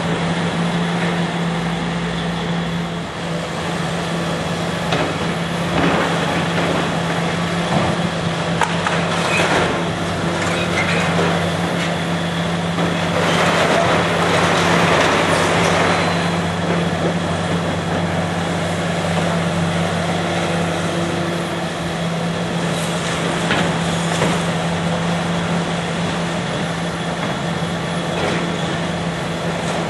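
Diesel engine of demolition heavy equipment running steadily while structural steel is torn out, with scattered metal clanks. A louder grinding, scraping stretch comes about halfway through.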